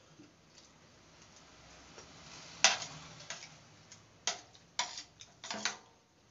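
Eating sounds at a steel plate: a few sharp clicks and smacks as vegetable biryani is eaten by hand, the loudest about two and a half seconds in and several more close together near the end.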